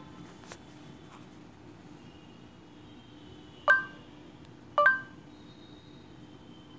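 Two short electronic chimes from the phone's Google voice search, about a second apart, over a faint steady hum.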